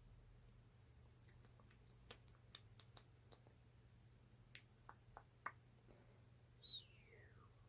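Faint, irregular clicks and taps of nails on a lip gloss tube, a dozen or so scattered through the first five or six seconds. Near the end comes one short squeak falling in pitch, the loudest sound.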